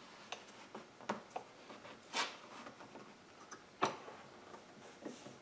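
Light clicks and knocks of wood being handled at a bench vise: a rifle buttstock and a wooden block set and shifted between padded vise jaws. The sharpest knock comes near the end.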